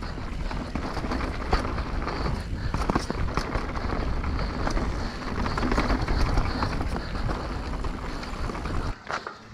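Mountain bike rolling fast down a rough natural trail: tyre rumble and rattling clicks from the bike over rocks and roots, with wind buffeting the helmet-camera microphone. It cuts off abruptly about nine seconds in.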